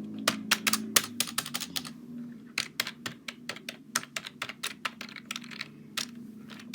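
Keys of a Microsoft computer keyboard being typed in quick, irregular runs of clicks, with a short pause about two seconds in.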